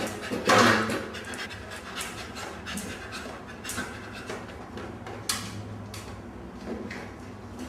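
Dog panting, a series of short breathy strokes, loudest about half a second in.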